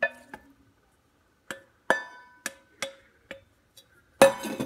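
A wooden spoon knocking and scraping grapefruit sections out of a stainless steel mixing bowl into a saucepan: about seven sharp, ringing clinks, then a louder, longer clatter near the end as the sections go into the pan.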